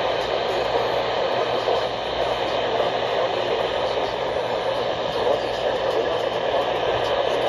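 Steady static hiss from a weather radio receiver picking up a weak, noisy broadcast signal, with no alert tones or clear voice coming through.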